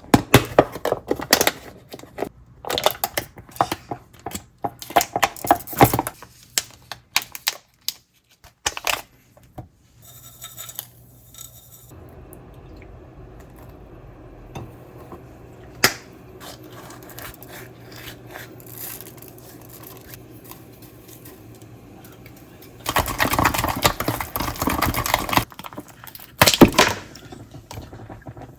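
Kitchen handling sounds: quick clicks and knocks of utensils and containers, then a steady low hum for about ten seconds, and a few seconds of louder rushing noise near the end followed by more knocks.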